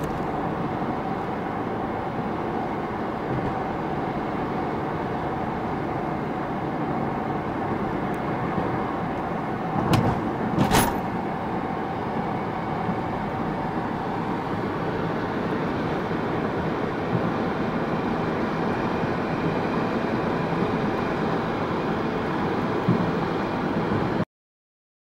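Steady road and engine noise inside a moving car's cabin, with two short knocks about ten seconds in. The sound cuts off suddenly near the end.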